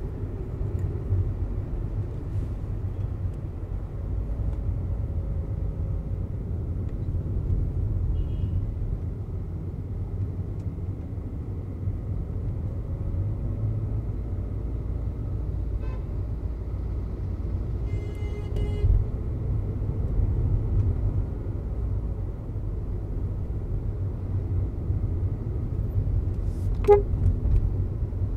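Steady low engine and road drone inside a Volkswagen Vento TSI's cabin as it drives. A vehicle horn sounds for about a second around two-thirds of the way in, and there is a brief sharp sound near the end.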